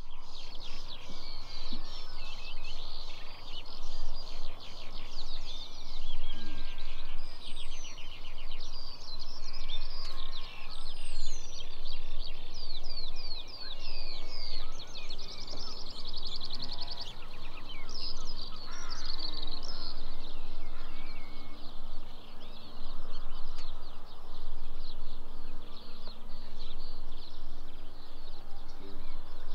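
Outdoor birdsong: several small birds singing and calling together, a steady stream of quick trills, chirps and rapid repeated notes, over a low steady rumble.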